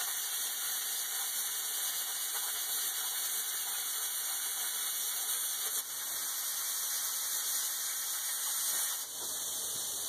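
Plasma cutter cutting quarter-inch steel plate: a steady, high hiss of the cutting arc and air, dipping briefly twice, near the middle and near the end.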